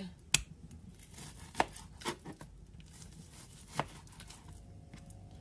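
Knife chopping turkey breast on a cutting board: four sharp knocks spread over a few seconds, the first the loudest.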